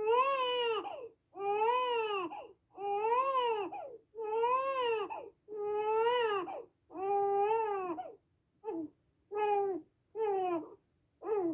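Infant crying: a steady run of wails, each about a second long, rising then falling in pitch, with a short breath between. After about eight seconds the cries become shorter and choppier, each falling in pitch.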